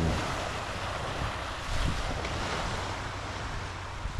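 Small waves washing onto a Lake Michigan beach, with wind buffeting the microphone.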